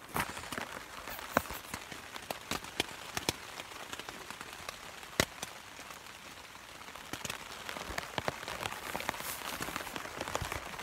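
Rain falling on a tent, heard from inside: a steady hiss with many scattered sharp ticks of drops striking the fabric.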